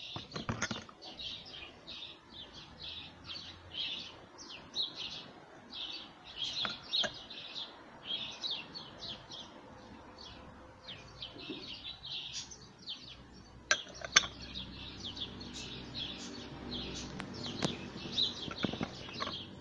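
Small caged songbirds chirping and twittering continuously in quick, high calls. A few sharp knocks cut through, the loudest two close together about 14 seconds in.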